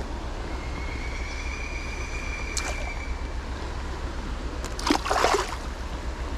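Creek water running steadily, with a short splash of water about five seconds in.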